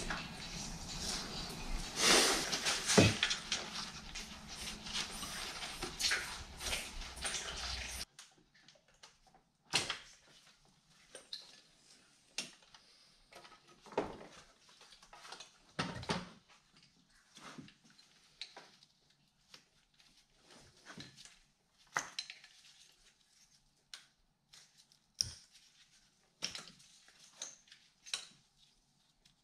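Metal hand tools and engine parts clinking and clattering as the top of the engine is taken apart by hand. The first part is busy, dense clatter. About eight seconds in, the background noise drops away suddenly, leaving scattered single clicks and knocks.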